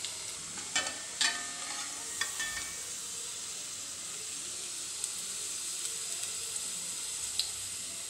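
Coconut oil sizzling steadily in a frying pan where carrot sticks have been fried. A slotted metal spatula clinks a few times in the first couple of seconds as the fried pieces are lifted out.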